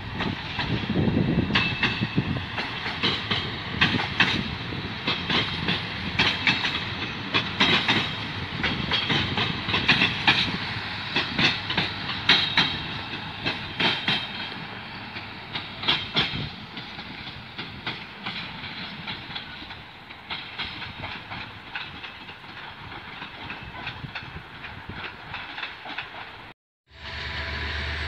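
Siemens Desiro diesel multiple unit passing, its wheels clicking over the rail joints in quick irregular succession over a steady rumble; the clicks thin out and the sound fades over the second half. Near the end the sound cuts off and gives way to a steady low hum.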